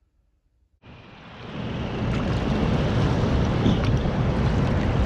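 Small waves washing up on a sandy beach, with wind buffeting the microphone; it comes in suddenly about a second in after near silence and swells to a steady level.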